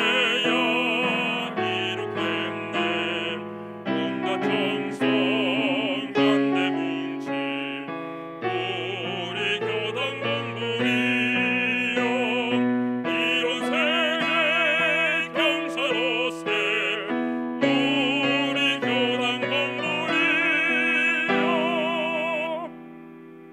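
A Won Buddhist hymn (seongga) sung with vibrato over piano accompaniment, in long held notes, the last chord fading out near the end.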